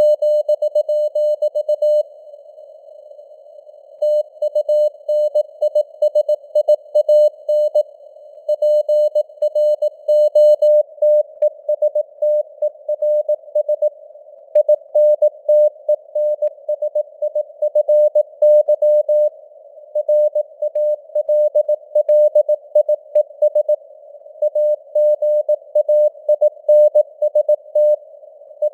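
Morse code (CW) at 18 words per minute: a single mid-pitched tone keyed on and off in dots and dashes, sending news text through simulated radio band noise, with a brief pause between word groups about two seconds in.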